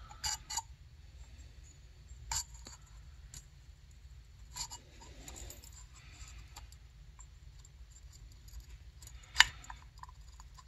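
Light, scattered clicks and scrapes of small carburetor parts being handled while the jet needle is fitted and lined up, with one sharper click a little after nine seconds in.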